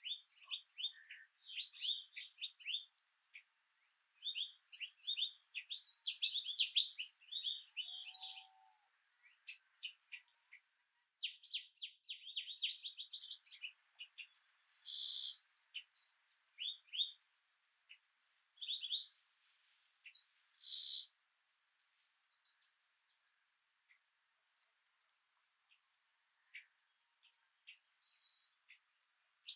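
Songbirds chirping and singing in quick runs of high notes, with short pauses between phrases, over a faint steady hiss.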